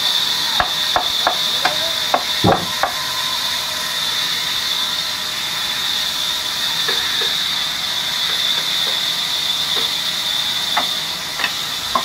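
Large log band saw running and cutting through a big hardwood log, a loud steady high whine. A quick run of sharp knocks about half a second to three seconds in, and two more near the end.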